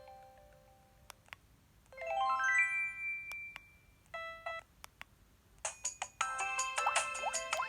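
Preloaded ringtones on a ZTE F102 mobile phone, played one after another: the last notes of one fade out, then a rising run of electronic notes ending in a held tone, a short chord, and from about six seconds in a busier, faster melody.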